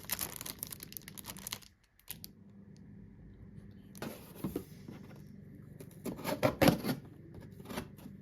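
Packaging being handled and pulled open: crinkling and rustling in irregular bursts, loudest a little past six seconds in.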